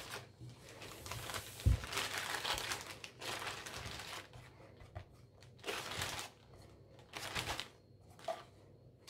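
Zip-top plastic bag crinkling in a series of short bursts as dough balls are put into it, with a dull thump about two seconds in.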